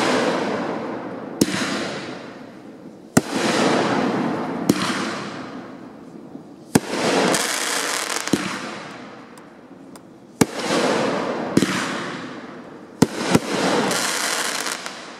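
Pyro Force 'Dead Mans Saloon' 9-shot 500-gram fireworks cake firing: a sharp bang every one to two seconds, each followed by a crackling wash from the bursting glitter stars that fades away before the next shot.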